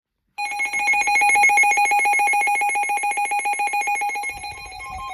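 Weather radio receiver's electronic alert alarm: a rapidly pulsing high tone, about ten beats a second. About four seconds in it changes to a slower alternation between two pitches.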